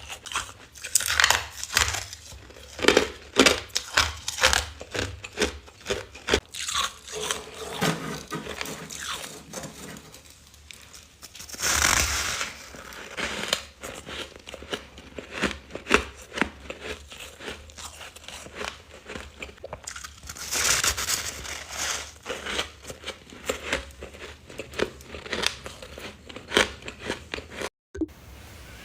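Close-miked biting and chewing of freezer frost ice: a dense string of crisp crunches, with a couple of longer, louder grinding crunches along the way, and a moment of silence near the end.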